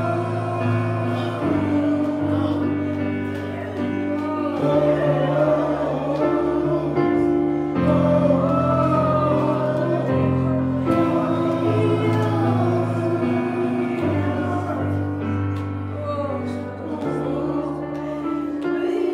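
Congregational worship singing: many voices singing freely, their lines rising and falling over sustained instrumental chords that change every couple of seconds.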